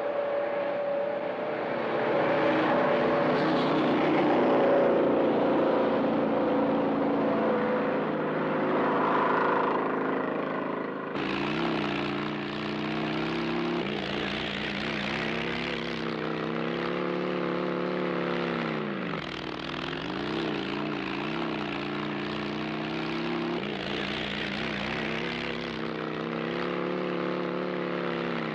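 Motorcycle engine running and repeatedly revving up and easing off as the bike is ridden over rough ground. The sound changes abruptly about eleven seconds in.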